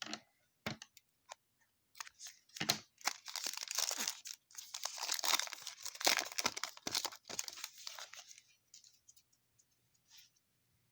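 Foil trading-card pack wrapper being torn open and crinkled: a few sharp clicks, then several seconds of dense tearing and crackling that dies down to faint ticks near the end.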